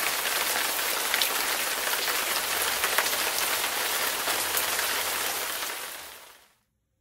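Steady rain with scattered drop ticks, most likely a rain sound track laid over the pictures since the sky outside is clear. It fades out near the end.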